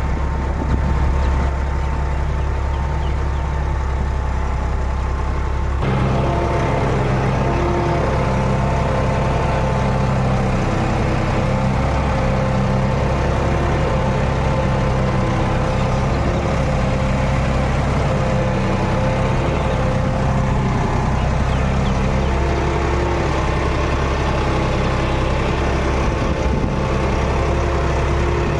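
John Deere 5210 tractor's three-cylinder diesel engine running steadily while pulling a plough, with an abrupt shift in the engine note about six seconds in.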